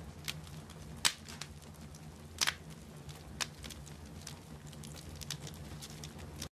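Wood fire crackling: irregular sharp pops over a low steady hum, stopping abruptly near the end.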